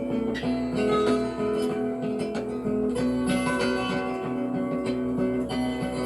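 Acoustic guitar music, picked and strummed in an instrumental passage between sung verses of a folk song, played back from a freshly lathe-cut Lexan record on a turntable.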